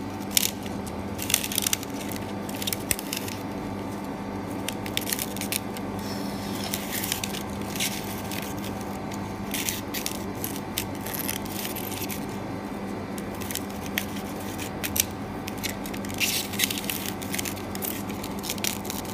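Steady hum of a screen-separator machine, with irregular crackling and scraping clicks as a Samsung Galaxy S6 edge glass-and-LCD screen is pressed and slid across its metal plate by a gloved hand.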